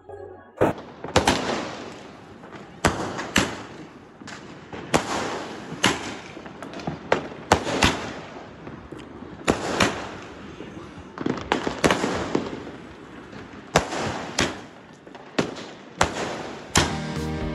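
Fireworks going off: a long run of sharp bangs, irregularly spaced about half a second to a second apart, with crackling between them. They start about half a second in and give way to music near the end.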